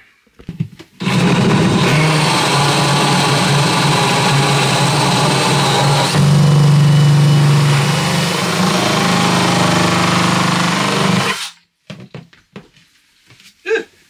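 DeWalt cordless drill running steadily for about ten seconds, reaming a stiff pin hole in a wooden frame a little wider. It gets a little louder around the middle and stops abruptly near the end.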